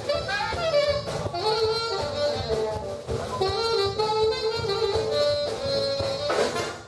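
Instrumental street frevo (frevo de rua): a saxophone plays a quick, stepping melody over band accompaniment with electric guitar and drums.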